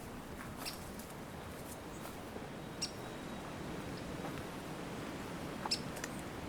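Woodland ambience: a steady hiss of background noise with a few short, sharp, high-pitched chirps or ticks scattered through it.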